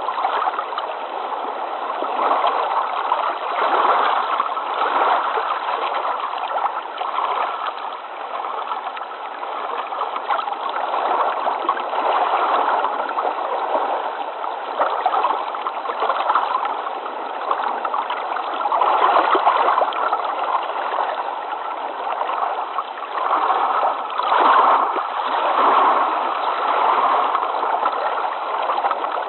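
Water flowing steadily, a continuous rushing noise that swells and eases every few seconds.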